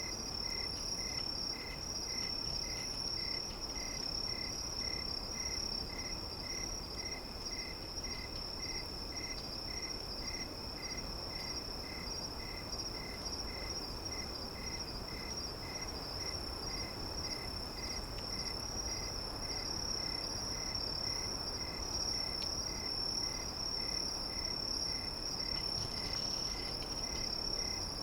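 Steady high-pitched insect trill, with a quieter chirp repeating about twice a second, over a faint even hiss.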